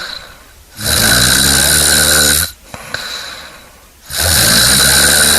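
A person snoring: two long, loud rattling snores on the breath in, about three and a half seconds apart, with a quieter breath out fading between them.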